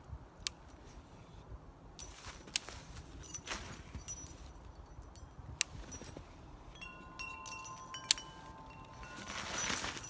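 Wind chimes struck by a cast spinnerbait, ringing with several overlapping tones for about two seconds starting a little past the middle. A few sharp clicks come earlier.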